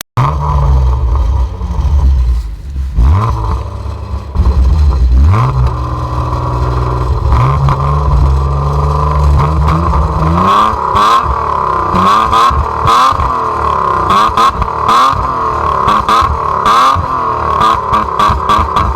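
BMW 325i E36's straight-six engine through its stock exhaust, loud, revved up several times in the first half. After that it keeps running with a pitch that wavers up and down, with repeated sharp clatter over it.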